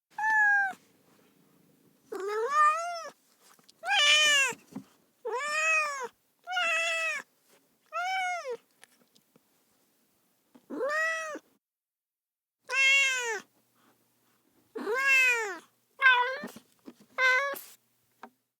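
Domestic cat meowing over and over: about eleven separate meows, each rising then falling in pitch, with short silent gaps between them.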